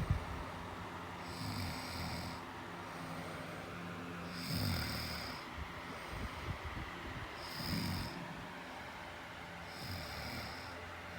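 Slow, regular snoring, a snore about every three seconds, four in all, each carrying a thin high whistle over a low rumble.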